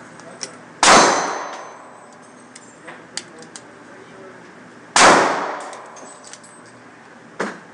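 Two gunshots about four seconds apart, each followed by a long echoing decay, with a few lighter clicks and knocks in between and a sharper knock near the end.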